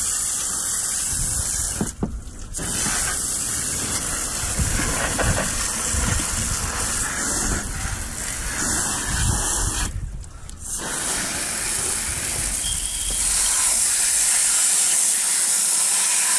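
Water from a hand-held hose spray nozzle hissing and splashing across a Jeep Wrangler's engine bay, rinsing the engine off. The spray breaks off briefly twice, about 2 seconds in and about 10 seconds in.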